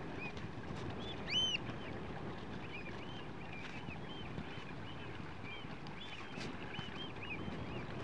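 A flock of Eurasian oystercatchers calling in flight: many short, repeated 'kleep' calls, one louder call about a second and a half in, over a steady rush of wind and choppy water.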